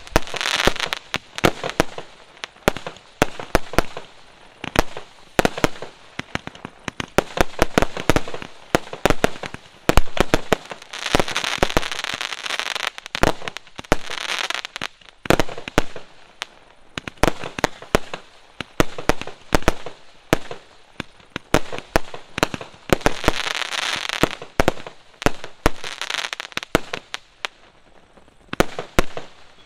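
Aerial fireworks going off in a long volley of sharp bangs, several a second, with stretches of dense crackling every few seconds as the shells burst; the volley thins out near the end.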